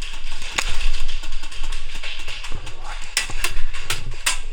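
Music with vocals, crossed by several sharp clicks, most of them bunched near the end.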